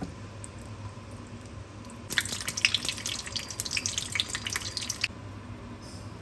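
Water running from a tap and splashing into a sink for about three seconds, turned on and off abruptly, over a low steady hum.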